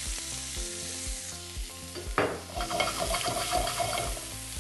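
Onions frying and sizzling in hot oil in a pan while being stirred, with a sudden louder burst of sizzling about two seconds in and about two seconds of busier sizzling and stirring after it.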